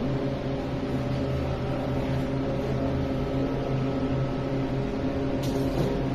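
A motor running steadily, giving an even, low-pitched hum.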